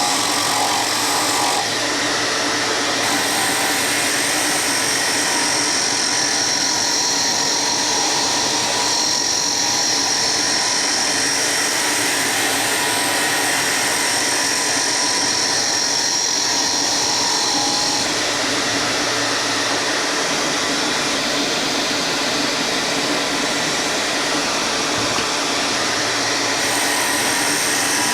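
Power tool running continuously with a steady high whine, its tone shifting slightly a few times as it works the wood.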